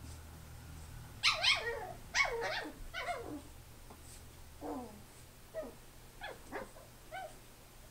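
A chi-poo (Chihuahua–poodle mix) puppy giving high-pitched play yips and barks, each one dropping in pitch: three loud ones in quick succession, then a run of shorter, quieter yips.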